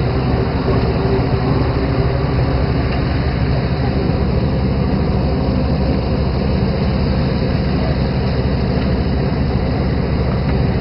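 Fishing boat's engine running steadily, a continuous low drone with a hiss over it.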